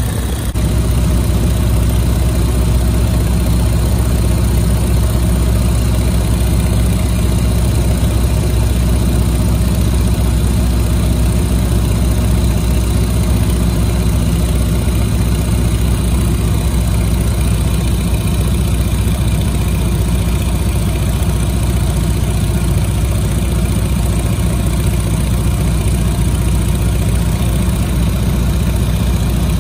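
Biplane engine running at a steady speed, a constant loud drone that steps up slightly about half a second in.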